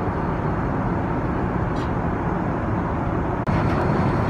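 Steady rushing drone of an Airbus A380 cabin in cruise flight: engine and airflow noise heard from inside the cabin. About three and a half seconds in it cuts to a slightly louder stretch of the same drone.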